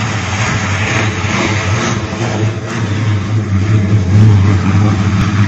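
A helicopter's engines and rotor running in flight: a steady low drone, a little louder from about four seconds in.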